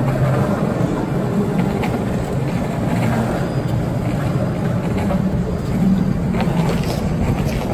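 Skateboard wheels rolling over a concrete floor: a steady rumble with a few faint clicks now and then.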